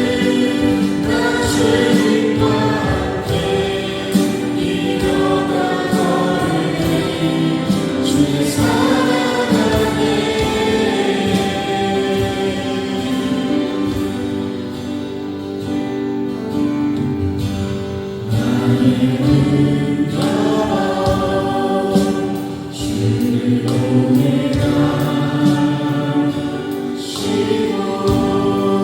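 A choir singing, in the style of gospel or church music.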